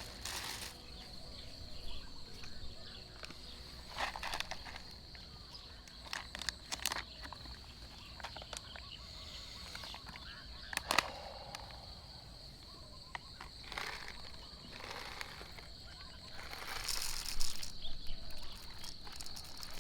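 Insects droning in one steady high tone, with scattered clicks and knocks of things being handled close by; the sharpest knock comes about eleven seconds in, and a busier clatter near the end.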